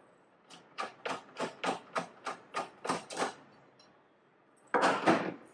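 Screwdriver clicking evenly, about four clicks a second, as a screw is backed out of the back of a TV. Near the end come a couple of louder clacks.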